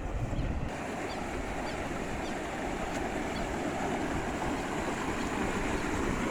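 Floodwater from an overflowing farm dam rushing steadily down the spillway as a small waterfall, a continuous even roar of water.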